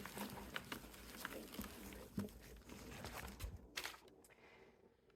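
Faint rustling and scattered light clicks of hands sorting through packing peanuts and paper in a shipping box, with a sharper tap near the end.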